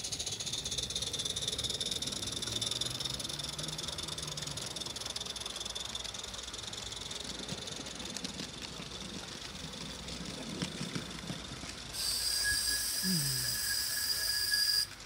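Small coal-fired live-steam model locomotive running with a steady hiss of steam. About twelve seconds in, a much louder, shrill burst of steam starts abruptly and holds for about three seconds before cutting off suddenly.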